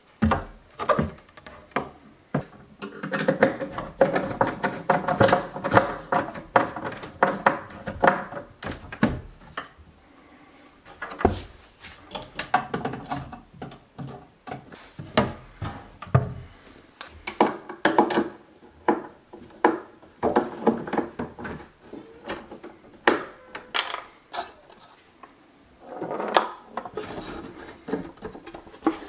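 Wooden table parts being handled and worked on: a run of short knocks and thunks on wood, with stretches of rubbing or scraping between them.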